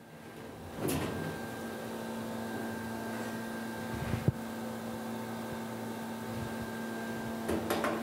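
A commercial dish machine's drain plug (overflow tube) being lifted out of the stainless steel wash tank and set back: a sharp metallic click about four seconds in and a cluster of clunks near the end, over a steady hum.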